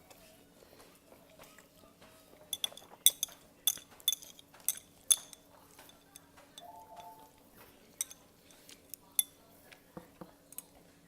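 Eating utensils clinking against a bowl: a quick run of sharp clinks a couple of seconds in, then a few scattered ones later, over a faint steady hum.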